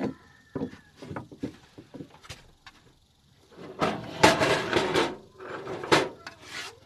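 Handling noise from insulated wire leads with metal ring terminals: scattered light clicks, then a second or so of scratchy rustling about four seconds in and a shorter burst of it near the end.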